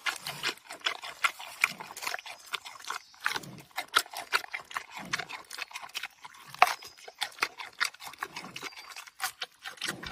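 Giant panda crunching and chewing a fresh bamboo shoot: rapid, irregular crisp crunches, several a second, with softer chewing between bites.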